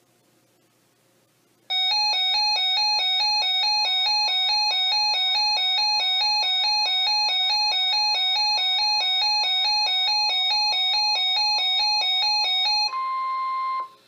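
Weather alert radio's electronic warning alarm, a harsh two-pitch beeping at about four beeps a second, set off by a broadcast National Weather Service warning. It starts about two seconds in. Near the end the beeping stops and the steady 1050 Hz weather radio alert tone it was covering is heard alone for about a second.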